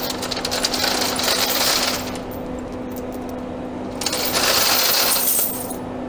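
Steel tire chain, a partly tack-welded ladder of galvanized links, rattling and clinking as it is dragged off a steel welding table, in two bouts with a short lull between them, over a steady low hum.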